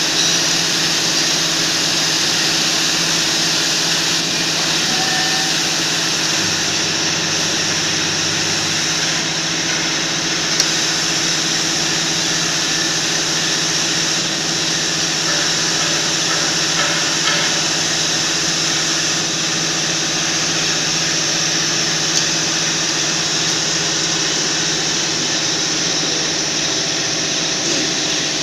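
Welding equipment running with a steady hum and hiss that holds level throughout, a few faint ticks on top.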